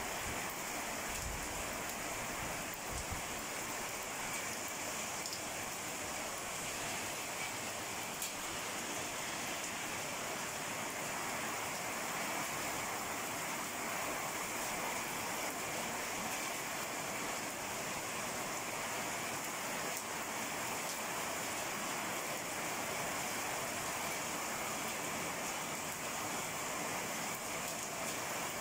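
Heavy rain pouring steadily, an even hiss of water falling on streets and rooftops.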